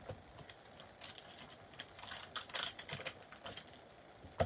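Clear plastic stamp case and stamp sheet being handled: a faint run of crinkling and small clicks, with a sharper click near the end.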